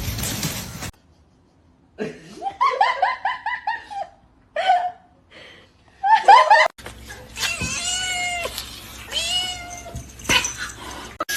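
Cats meowing: a quick run of short meows, then a few single calls, and after a cut some longer meows with a falling end.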